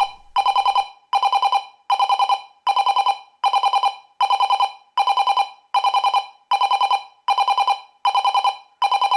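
Optex Wireless 2000 (RCTD-20U) driveway-alert receiver sounding its alarm output: a loud, fast-warbling electronic tone in short bursts, repeating evenly a little faster than once a second.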